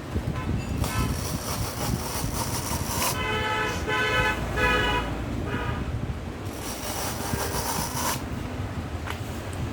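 A vehicle horn honks several times in quick succession a few seconds in, over a steady engine and traffic rumble. Two stretches of loud hissing come before and after the honks.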